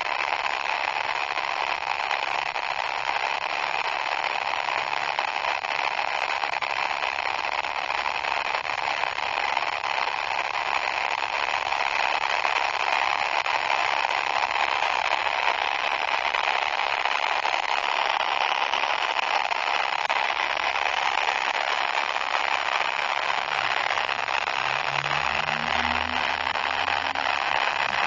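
Heavily distorted 'poop' sound effect: a steady, loud wash of harsh hiss-like noise, with a few short low, stepping tones near the end.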